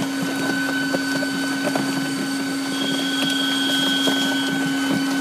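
Reference Cutter RC800 food-cutting machine running steadily: an even motor hum with a low steady tone and a higher whine, with light scattered ticks.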